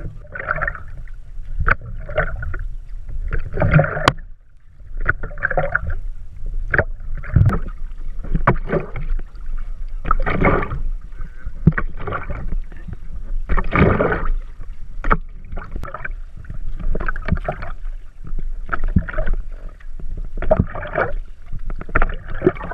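Outrigger canoe paddle strokes heard close up from the paddle itself: a splash and rush of water with each stroke, about one every one and a half to two seconds, with sharp knocks in between.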